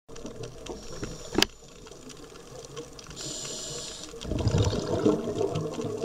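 Underwater bubbling recorded through a camera housing. There is a sharp click about one and a half seconds in and a short hiss about three seconds in, then louder low bubbling and gurgling to the end.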